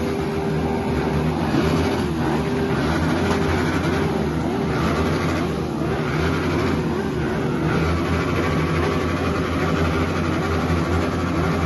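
An engine running steadily, its pitch wavering slightly up and down about once a second.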